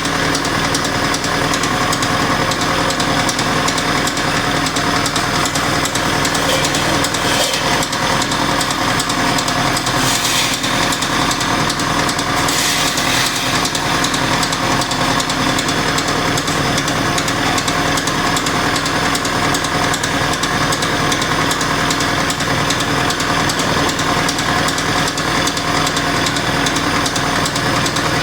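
VAZ-2101 inline-four engine running steadily with a knock, a sound the owner traced to a worn piston pin.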